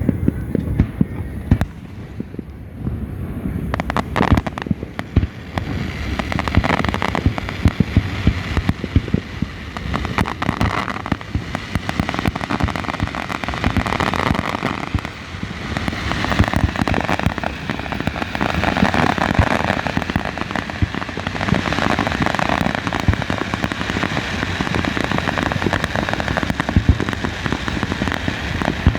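Fireworks going off in a long run of bangs, turning into a dense crackling from about six seconds in.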